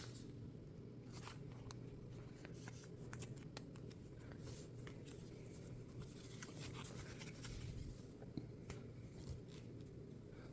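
Faint rustling and scattered light clicks of trading cards and their packaging being handled, over a steady low room hum.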